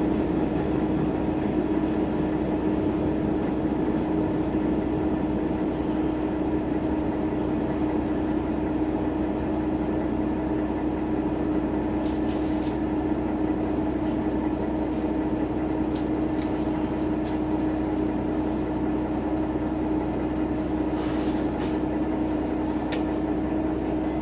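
Sanriku Railway diesel railcar running, a steady drone heard from inside the passenger cabin. A few short clicks and brief faint high squeaks come in the second half.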